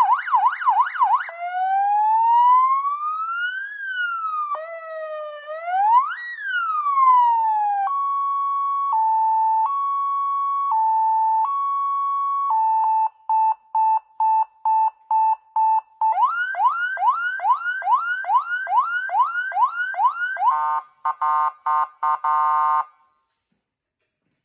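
A 12 V 50 W seven-tone electronic car siren through its horn speaker, stepping through its tones: a fast yelp, a slow rising-and-falling wail, a two-tone hi-lo, a rapid on-off beep, quick repeated rising whoops, then a warbling multi-tone chirp. It cuts off about 23 seconds in.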